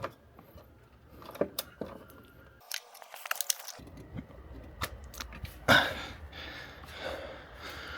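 Irregular small metal clicks and handling noises of a hand tool tightening screws, with a louder scrape about six seconds in.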